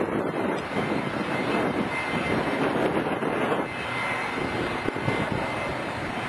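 Helicopter flying low overhead: a steady rotor and engine noise that eases slightly a little under four seconds in.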